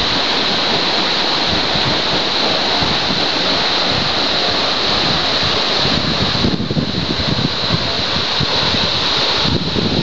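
Waterfall pouring down a rock face into a pool: a steady, loud rush of falling water.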